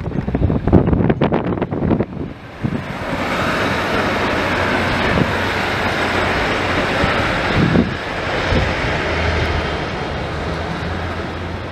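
Diesel multiple unit pulling away from the station, its underfloor diesel engines giving a steady low drone under a broad rushing noise. Wind buffets the microphone for about the first two seconds.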